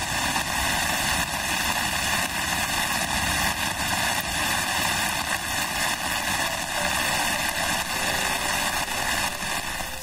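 Heavy rain falling on trees: a steady, even hiss.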